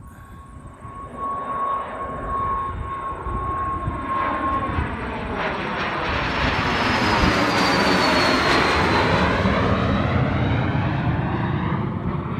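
Private jet's engines at takeoff power as it climbs out and passes. The noise grows louder to a peak about eight seconds in, with a high whine that falls in pitch as it goes by.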